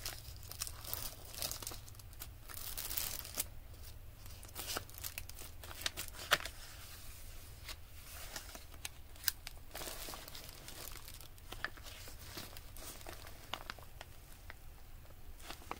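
Paper rustling and crinkling in irregular bursts as the pages of a handmade paper junk journal are handled and turned. The crinkling is busiest in the first few seconds and thins out later, over a low steady hum.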